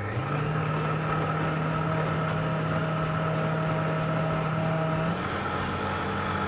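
Monsieur Cuisine Connect food processor's blade motor running steadily, pulverizing lemon peel with sugar. Its pitch steps up just after the start as the speed is raised, and it changes again about five seconds in.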